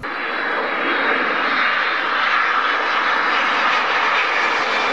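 Twin jet engines of a Boeing 767 airliner running at high power on the runway: a steady, loud rushing noise with a faint high whine in it.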